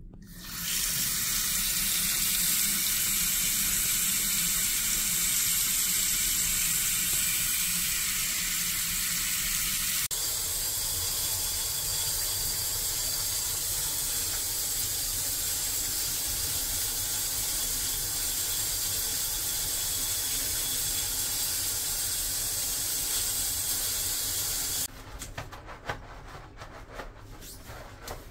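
Water from a tap runs steadily into a washbasin, then a handheld shower head sprays steadily. The water cuts off suddenly near the end.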